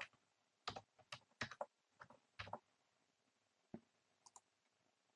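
Faint typing on a computer keyboard: a quick run of keystrokes over the first two and a half seconds, then a few isolated clicks.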